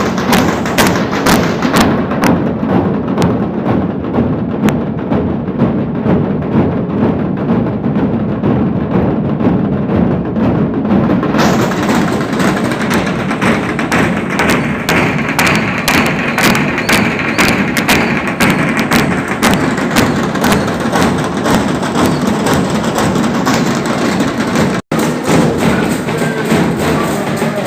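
Procession drums beating fast and without a break, with a dense, crowded stream of strikes. The sound brightens about halfway through and cuts out for an instant near the end.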